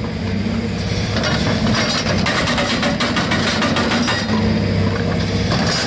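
Excavator-mounted hydraulic breaker hammering into broken concrete and ground in rapid, continuous blows, over a diesel engine running steadily.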